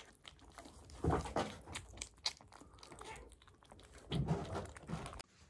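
Kittens eating from foil trays: chewing and smacking with many small clicks and crunches, louder about a second in and again about four seconds in. It cuts off suddenly shortly before the end.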